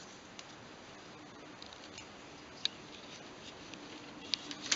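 Light plastic clicks and taps of a Toshiba R830 laptop's plastic screen bezel being handled and set back over the display. There is a single sharp click about halfway through and a few quick clicks near the end.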